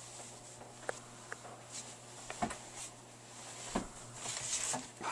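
Soft thumps, small clicks and cloth rustling as a person shifts on a carpeted floor and a blanket is moved over him, the rustling loudest near the end, over a faint steady hum.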